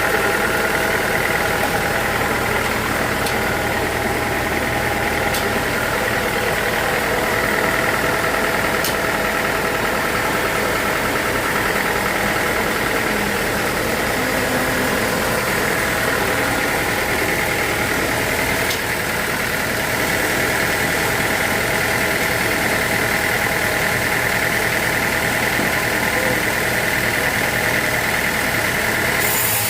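Sawmill machinery running steadily: an even mechanical drone with several held tones and a few faint clicks.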